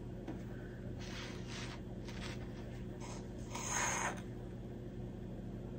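Soft, faint rustling and scraping of stuffed fabric hearts and their yarn hanging strings being handled, with a slightly louder rustle about three and a half seconds in, over a low steady hum.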